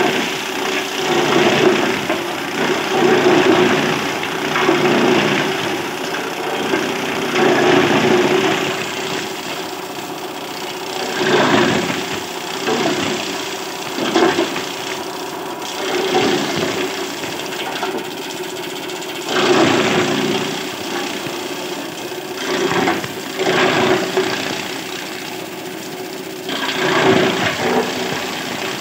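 Electric chaff cutter with a 3 hp motor running with a steady hum, its blades chopping green fodder stalks. The sound swells into louder spells every few seconds as bundles are fed in and cut.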